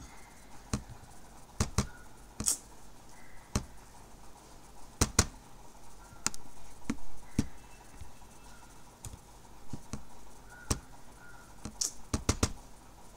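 Computer mouse clicking, about fifteen single clicks at irregular intervals, some in quick pairs.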